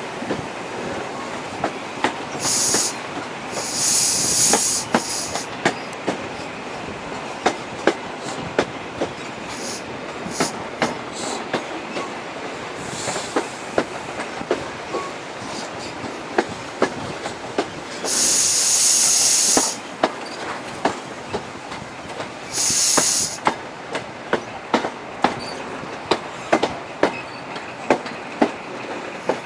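An HST (InterCity 125) coach's wheels clicking over rail joints as the train runs into a station, over steady rushing noise past the open window. Several short high-pitched wheel squeals break in, the longest about two-thirds of the way through.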